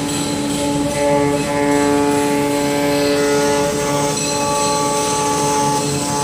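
CNC router running while milling wood: a steady machine whine made of several held tones that shift in pitch a few times.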